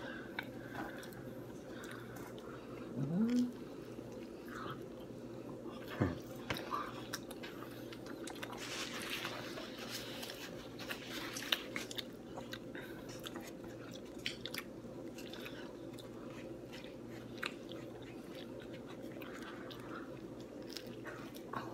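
Pizza being bitten and chewed, with small crunches of crust and scattered clicks over a steady low hum. A brief rising squeak about three seconds in is the loudest sound.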